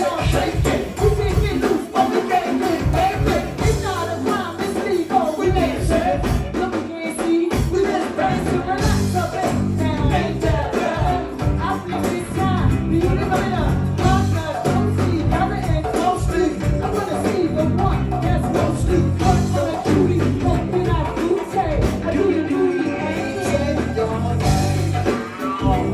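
Live go-go band playing: a dense percussion groove over bass, with singing over it.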